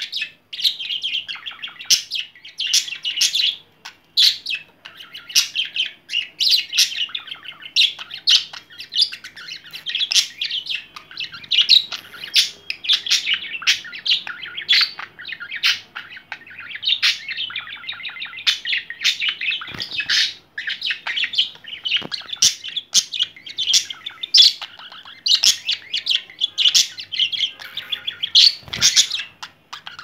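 Young male budgerigar chattering and warbling without pause, a fast stream of chirps, clicks and squeaky notes. This is a courtship warble directed at a cockatiel.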